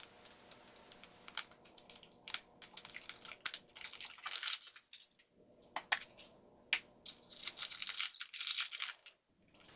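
A small toy surprise package being torn open and unwrapped by hand: scratchy tearing and crinkling of wrapping in bursts, with a few sharp clicks.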